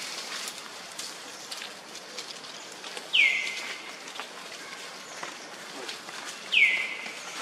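A bird calls twice, about three and a half seconds apart. Each call is a loud note that drops sharply in pitch and then holds briefly. Behind it is a steady forest hiss with scattered faint ticks.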